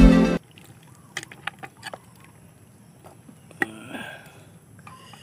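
Background music cuts off just after the start. Then a metal ladle stirs simmering broth in a large metal cooking pot, with light sloshing and a few sharp clinks against the pot.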